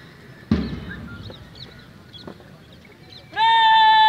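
A single loud thump about half a second in, then near the end a parade commander's long drawn-out word of command, held on one high note, calling the platoons to attention.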